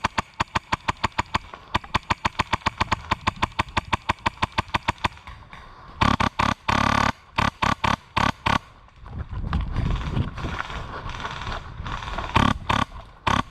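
Airsoft guns firing: a long string of rapid shots, about eight a second, for about five seconds. Louder bursts of fire follow about six to eight and a half seconds in, then a low rumbling noise and a few more shots near the end.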